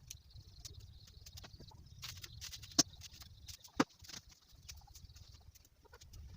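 Pumpkin leaf stems being snapped and stripped by hand: scattered light clicks, with two sharp snaps about a second apart near the middle.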